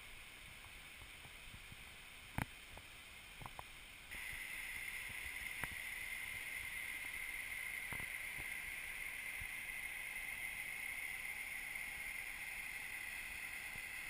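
Mountain torrent rushing, heard muffled through a GoPro's waterproof housing, growing louder about four seconds in. A few sharp knocks, the loudest about two seconds in.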